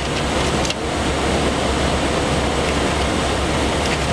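Steady rushing cockpit noise of an Airbus A319 in flight, the even roar of airflow and ventilation, with a faint click just under a second in.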